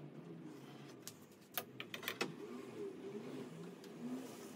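A few light clicks and taps, bunched between about one and two seconds in, from hand tools being handled and set down on a workbench, over a faint low hum.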